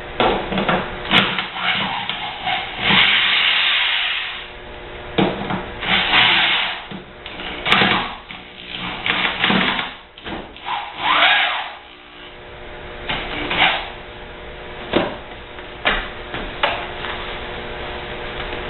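Dishwasher parts being handled and worked with tools during disassembly: irregular knocks, scrapes and rattling, over a faint steady hum.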